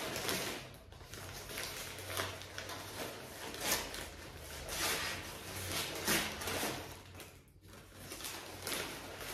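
Crumpled brown packing paper rustling and crinkling as it is pulled open by hand, in irregular bursts with a few sharper crackles.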